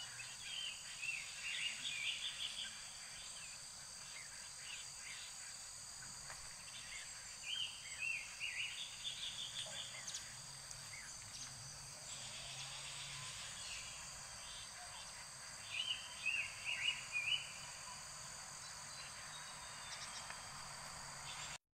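A songbird singing three short bouts of quick, high, chirpy notes over a steady high-pitched drone of insects. The audio cuts off abruptly near the end.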